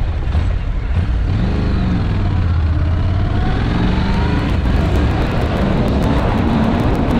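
Honda NC750 motorcycle's parallel-twin engine running under way, its note rising twice as it accelerates, over a steady rush of wind and road noise.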